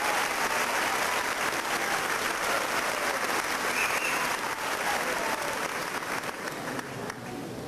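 Large audience applauding, a dense steady clapping that thins out near the end.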